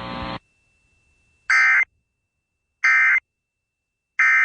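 Emergency Alert System end-of-message signal: three short, loud bursts of screechy digital data tone, about a second and a half apart, marking the end of the alert broadcast. A steady hiss from the broadcast audio cuts off just before them.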